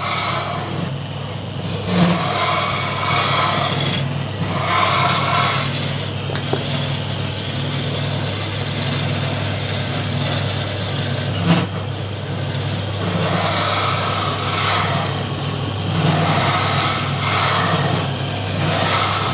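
Large bandsaw running with a steady low hum, its blade cutting into a thick round log slice in stretches of louder hissing. Two sharp knocks, about two seconds in and near the middle.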